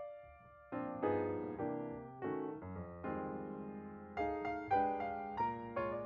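Background piano music: a run of struck notes and chords, with a short pause just after the start.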